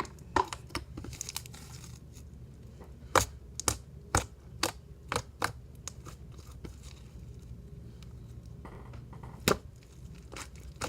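Slime being worked by hand, with sharp, irregular pops as its air bubbles burst: about a dozen, most of them between three and six seconds in and a loud one near the end.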